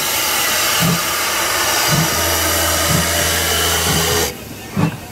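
Steam locomotive C56 160 pulling away, with a loud steady hiss of steam that cuts off suddenly about four seconds in. Under the hiss are low thuds about once a second, coming a little quicker toward the end.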